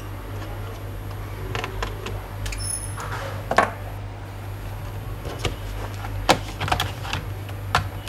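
Plastic base of an HP 15 laptop being handled, with scattered clicks and knocks and one short scrape about three and a half seconds in, over a steady low hum.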